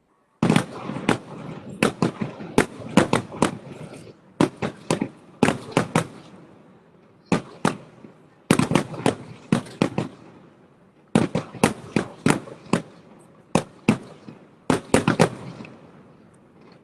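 Fireworks going off in rapid volleys of sharp bangs, several a second, with short lulls between the volleys.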